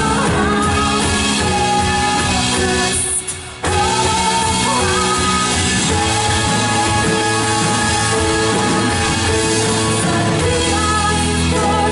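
Worship band playing a rock-style song with a singer, the music cutting out briefly for about half a second around three seconds in before coming back in.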